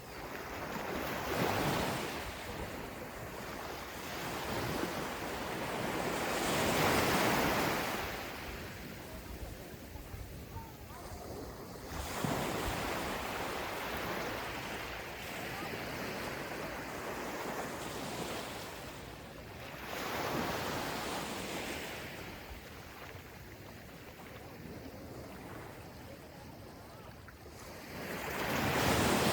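Gentle ocean waves breaking and washing onto a sandy beach, a soft hiss of surf that swells with each wave about every five to seven seconds, with some wind on the microphone.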